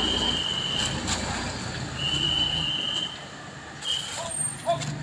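Street traffic: a vehicle engine rumbling close by, fading out about halfway through. A high, steady tone sounds three times, the first about a second long.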